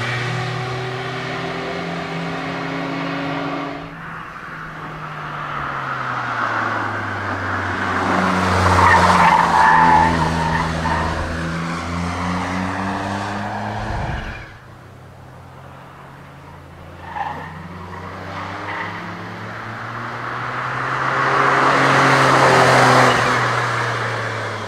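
Race-prepared Smart roadster's small three-cylinder engine revving hard through a hillclimb slalom, pitch climbing and dropping with gear changes and lifts, loudest as it passes close about a third of the way in and again near the end. Tyres squeal in the corners. The sound drops off suddenly about halfway through, then builds again as the car approaches.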